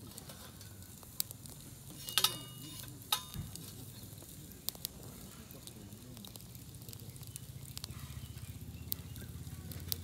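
Firewood burning in a small folding steel campfire stove, crackling steadily with a handful of sharp pops and snaps, the loudest just after two seconds in.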